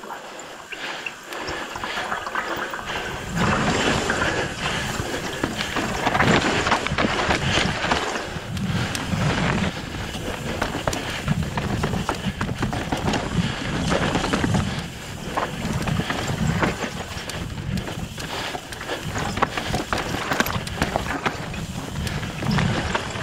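Mountain bike riding down rock slabs: wind rushing on the microphone over the rolling and rattling of the tyres and bike on the rock, growing louder after the first couple of seconds.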